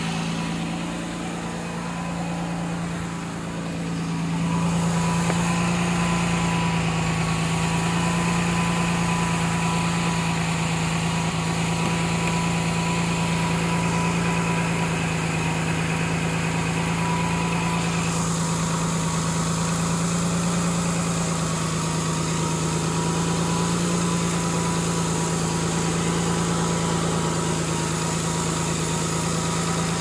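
2006 Ford Taurus 3.0L V6 idling steadily shortly after a cold start, with a faint steady whistle from the intake side. The mechanic first took it for a vacuum leak, then thought it may just be the sound of the intake. The cylinder 5 misfire seems to be gone. The engine gets slightly louder about four seconds in.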